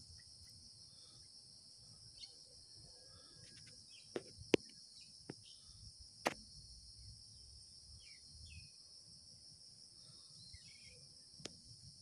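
Faint, steady high-pitched insect chorus, like crickets, with a few short sharp clicks around the middle and one more near the end.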